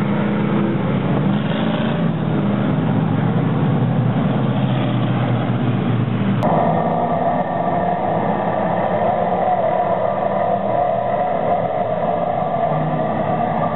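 Stock car engines running as cars pass at low speed on a paved oval. About halfway through the sound cuts to the whole field running together, with a steadier, higher-pitched engine note.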